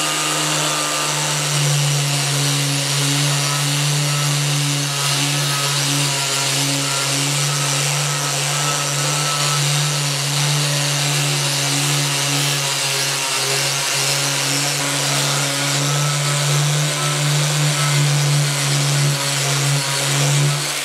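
Makita angle grinder running steadily with a purple fiber abrasive pad, scrubbing rust and varnish off a scroll saw's metal table: a steady motor hum under the hiss of the pad on the metal.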